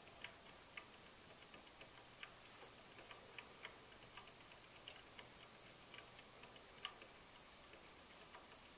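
Near silence: faint hiss with scattered light clicks at irregular intervals.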